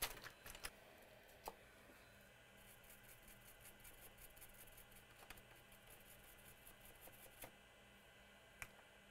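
Near silence broken by a few faint clicks and a stretch of quick light ticking, small handling noises from moving a laptop motherboard about on the bench.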